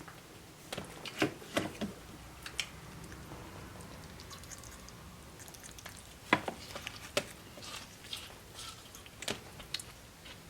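Scattered sharp clicks and taps of a plastic dog puzzle feeder being worked by a small monkey after corn kernels, the loudest a few knocks about a second in and again around six and seven seconds.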